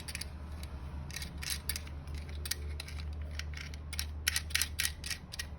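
Mortise lock being worked by hand: a run of small, irregular metallic clicks and rattles from its latch, bolt and cylinder parts, over a steady low hum.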